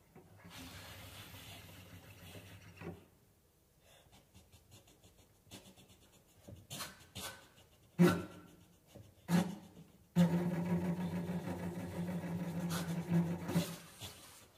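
Clarinet and French horn playing contemporary extended techniques. First an airy, breathy sound with only a faint low pitch, then scattered soft clicks and two sharp accented attacks. From about two-thirds of the way in comes a sustained, rough low tone until near the end.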